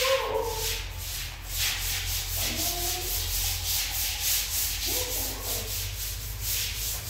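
Rhythmic rasping strokes, about three a second, of something being rubbed back and forth.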